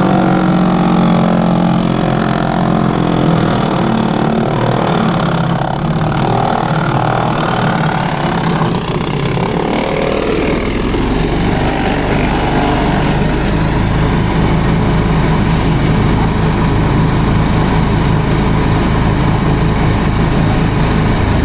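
Engine of a wood chipper running loudly and steadily, its note changing and settling lower about ten seconds in.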